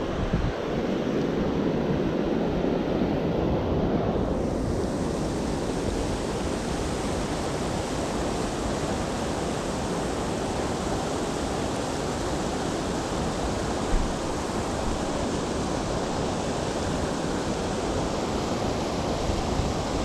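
Steady rush of creek water pouring over a small falls, with wind buffeting the microphone.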